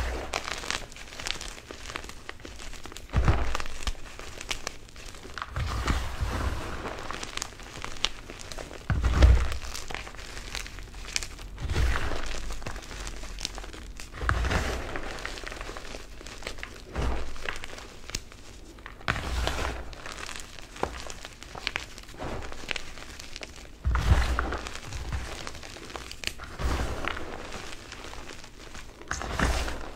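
Crunchy blocks of Plain Jane Cap gym chalk being crushed and squeezed by hand in a bowl: dry crunching as chunks break into powder, in a series of squeezes every two to three seconds, each with a dull low thud beneath it.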